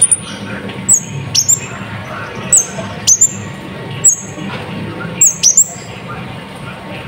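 Sunbird ('kolibri ninja') giving sharp, high call notes, each a quick downward-sweeping chirp, about eight in all at irregular intervals and several in quick pairs, over a low steady background hum.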